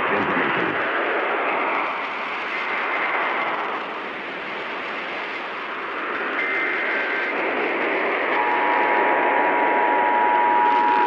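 Steady radio static hiss. A brief faint warble of SAME data tones comes a little past the middle. Then, about three seconds before the end, the steady two-tone Emergency Alert System attention signal begins, marking the start of a new alert.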